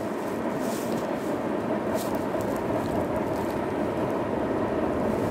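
Freight train's covered hopper cars rolling across a trestle bridge at a distance: a steady rumble of wheels on rail with a few short, sharp high-pitched noises, growing slightly louder.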